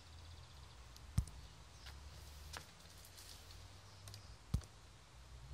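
Faint handling noise: a few light clicks and two short thumps, about a second in and again after four and a half seconds, over a low steady hum.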